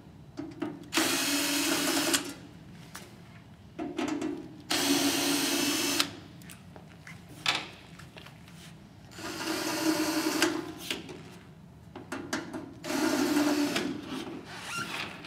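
Cordless drill with a Phillips bit backing out the screws of the ozone machine's metal housing, in four runs of about one to two seconds each. Small clicks come between the runs.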